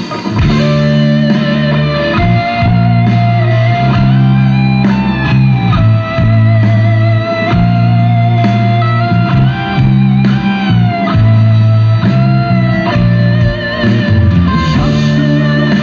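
Live rock band playing an instrumental passage: a lead electric guitar holds long notes with pitch bends over a steady bass line and band, heard loud through a festival PA from the crowd.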